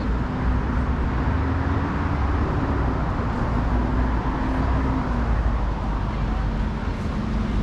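City street traffic noise: a steady rumble of passing cars and buses with a low engine hum.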